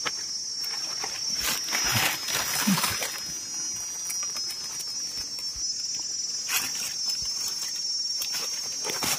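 Forest insects keep up a steady high-pitched drone. Over it come a few short rustles and scrapes of dry leaf litter and soil as mushrooms are cut out and handled.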